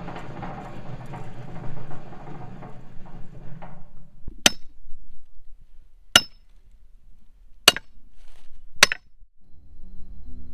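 A hand tool chopping into wood: four sharp, separate blows, each with a short ring, about a second and a half apart. For the first four seconds they are preceded by a dense, steady noise.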